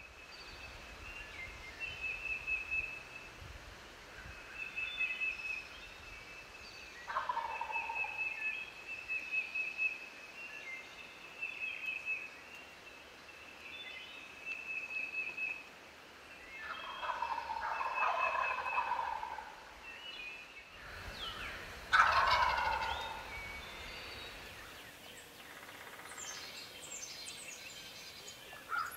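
Wild turkey gobbling three times, the third the loudest, each gobble a rattling call that falls in pitch. Between and under the gobbles a small songbird trills over and over, and quick chirps follow near the end.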